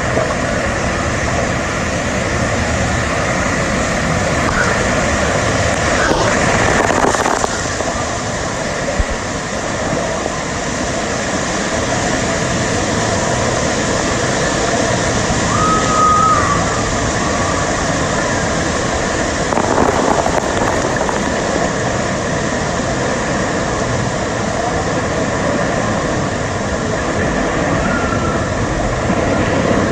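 Rushing, churning water of a wave river ride, steady throughout, swelling briefly a couple of times, with wind and water noise on the microphone.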